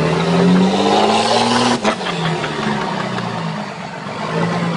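Diesel pickup engine revving hard under full throttle while rolling coal, pouring out thick black smoke. Its note climbs for about two seconds, there is a sharp click, and then it drops to a lower, steadier pitch.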